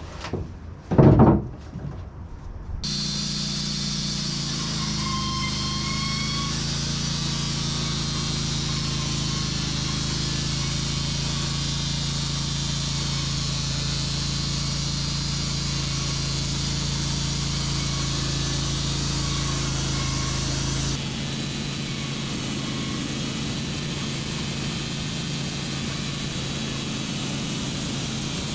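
A sharp knock about a second in, then the band sawmill's engine comes in abruptly and runs steadily. About twenty seconds later the sound changes suddenly and goes on a little quieter.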